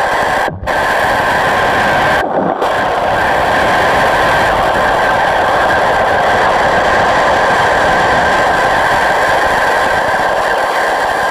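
Pressure washer jet spraying underwater, heard through the water: a loud, steady rushing noise, briefly broken about half a second in and again about two seconds in.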